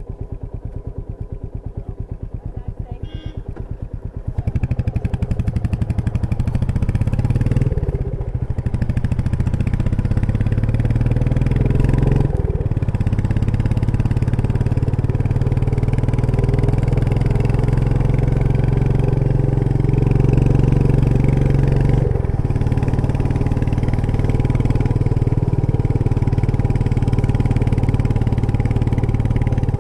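Royal Enfield Meteor 350's single-cylinder engine and exhaust on the move: low revs at first, then opening up about four seconds in and running strongly under load, with a few brief dips at gear changes.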